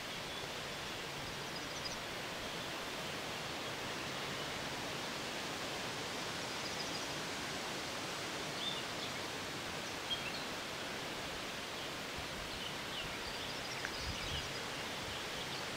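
Steady outdoor ambience, an even hiss of background noise, with a few faint, short bird chirps now and then.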